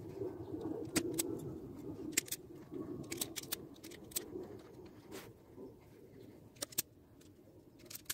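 Scattered light clicks and knocks of trimmer parts and wires being handled, over a faint steady hum that fades out after about five seconds.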